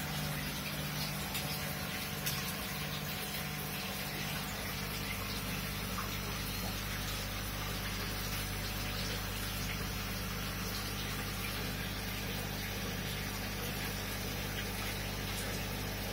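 Aquarium air pump and water running: a steady low hum under continuous bubbling water noise from an airstone's rising bubbles.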